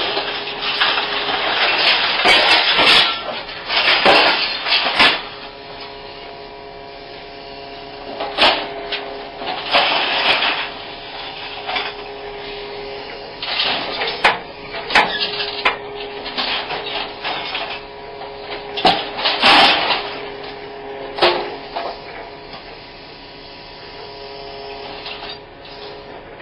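Small hydraulic scrap shear on a wheeled excavator working a pile of scrap metal: irregular loud crashes, clanks and scraping of metal, over the steady hum of the machine's engine.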